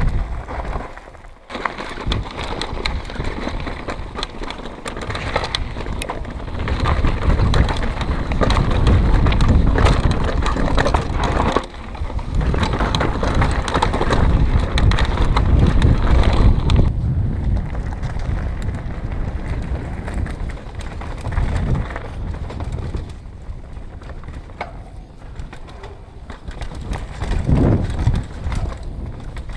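Mountain bike descending a rocky dirt and gravel trail: tyres crunching over loose stones and the bike rattling over bumps, with wind buffeting the camera microphone.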